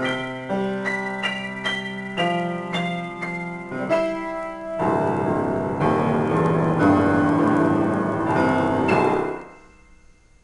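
Upright piano playing an improvisation: a run of separate chords struck a few times a second, then a denser, louder flurry of notes from about five seconds in. The playing stops suddenly after about nine seconds and the last notes ring away.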